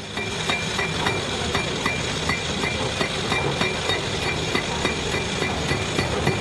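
Hydraulic hammer pounding in a steady rhythm of about three blows a second, over the steady noise of the machine running.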